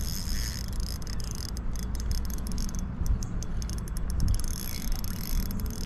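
Spinning reel being cranked steadily, its gears whirring as a hooked smallmouth bass is reeled in against the pull of the fish, with a steady low rumble underneath.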